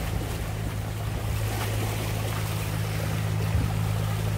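Small waves washing and splashing against rocks at the water's edge, with a steady low hum underneath.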